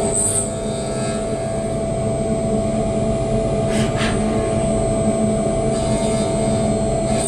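DURE Vertical 5060 CNC milling machine running, with a steady whine over a low machine rumble. Two short hissing bursts come about four seconds in.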